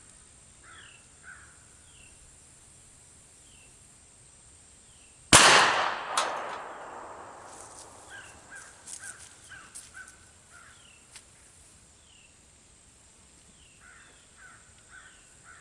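A single shot from a Smith & Wesson 1917 revolver chambered in .45 ACP, about five seconds in. The report rings out and dies away over a couple of seconds, with a second, fainter crack about a second after the shot.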